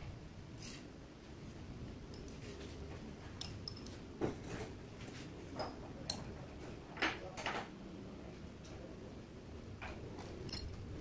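Light metallic clicks and clinks from a manual metal lathe's carriage and tooling being handled while the spindle is stopped, about seven short ticks spread unevenly over a faint low background hum.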